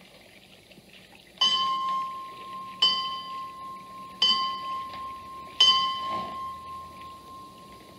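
A bell struck four times at an even pace, about a second and a half apart, each stroke ringing on with a clear tone.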